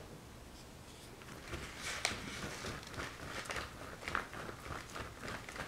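Paintbrush dragged through thick wet paint on paper: a run of short, irregular, scratchy swishes starting about a second and a half in, with one sharper click soon after.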